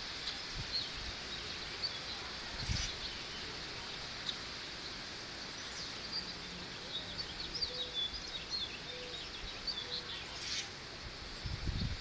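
Small birds chirping in the trees, short high calls that grow busier in the second half, over a steady outdoor background hiss. A single brief low thump about three seconds in.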